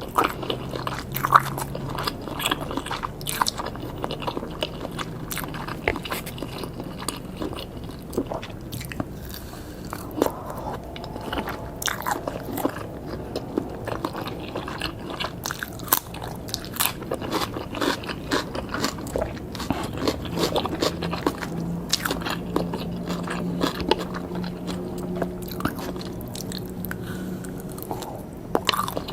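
Close-miked chewing and biting of grilled pork and red sausage skewers: a steady run of sharp, wet mouth clicks and crunchy bites.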